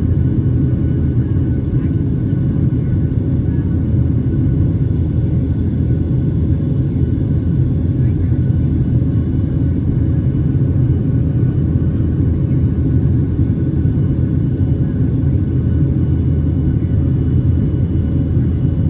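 Steady low cabin rumble of a Boeing 737-800 in flight, its CFM56-7B turbofan engines and the airflow heard from a window seat over the wing.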